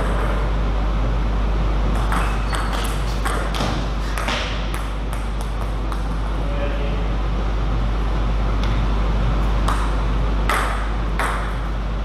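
A table tennis ball clicking off rackets and the table in short, irregular knocks, some in quick runs and some spaced out, over a steady low hum.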